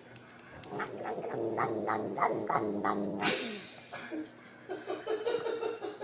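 A cat making drawn-out, wavering calls, with a sudden noisy burst about halfway through, then shorter repeated cries near the end.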